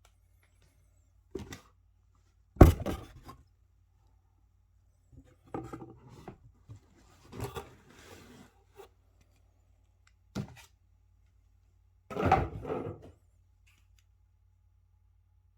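Unboxing handling sounds: a sharp knock about two and a half seconds in, rustling and rubbing of packaging, a click, and a longer scrape near the end.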